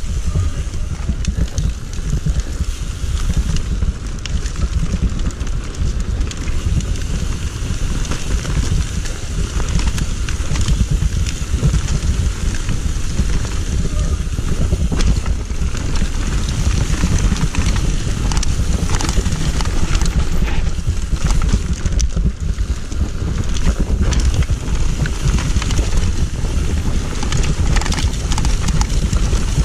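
Mountain bike riding fast down a dirt trail: tyres on dirt with the bike rattling and knocking over bumps, under heavy wind rumble on the camera microphone.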